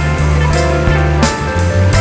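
Background music with a bass line and drum hits.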